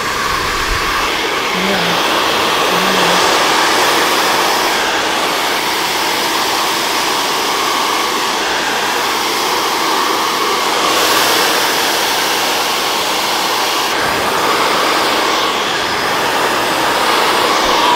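Handheld hair dryer running steadily, blowing air through its nozzle onto a section of wet hair held taut.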